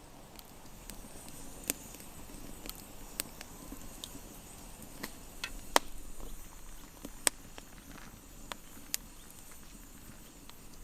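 Scattered sharp clicks and light knocks, about a dozen at irregular intervals, over a faint steady hiss.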